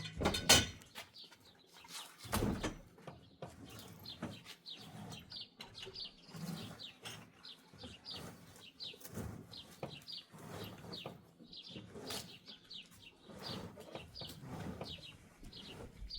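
Birds chirping steadily, a run of quick, high, falling notes. Two sharp knocks come about half a second and about two and a half seconds in.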